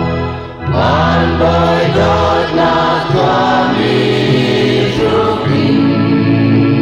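A group of singers singing a Chin traditional song together, with a short break about half a second in before the next phrase begins.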